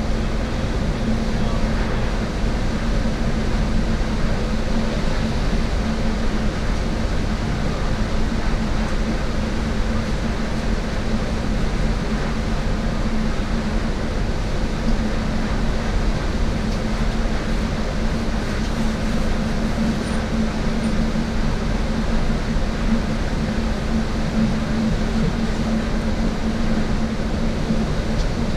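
Steady cabin noise of a Hong Kong–Zhuhai–Macau Bridge shuttle bus at cruising speed: an even engine and road drone with a constant low hum that does not change.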